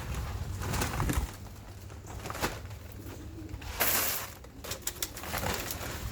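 Pigeons cooing, with rattling and hissing strokes as dry grain feed is scooped and poured for mixing, the loudest pour about four seconds in.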